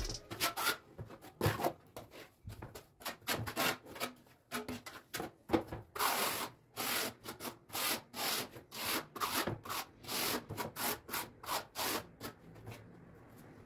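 Trowel scraping cement tile mortar across the back of a large rectified ceramic tile (back-buttering for double-sided bedding). It is a long run of short scraping strokes, coming quicker and louder in the second half and stopping shortly before the end.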